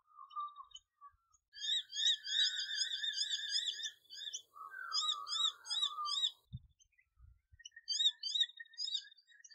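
Animal calls: three bursts of rapid, repeated high chirping notes, each note rising then falling, with a couple of low thumps about six and a half and seven seconds in.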